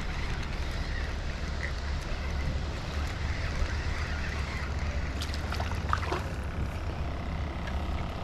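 Steady low wind rumble on the microphone, with a few brief sharp sounds about five and six seconds in.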